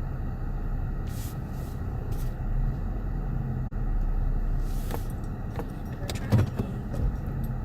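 Steady low engine and road rumble heard inside a car's cabin, with a few brief light clicks and rattles, the sharpest about six and a half seconds in.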